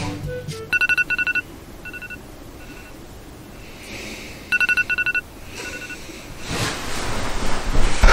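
An electronic alarm going off: a quick run of about four two-tone beeps, then fainter single beeps, the whole pattern repeating about four seconds later.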